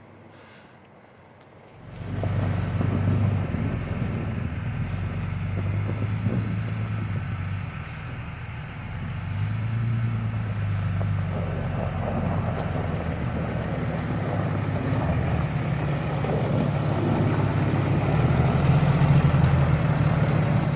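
Engine of a snow-clearing machine running under load, its pitch rising and falling as it works. It starts abruptly about two seconds in and cuts off at the end.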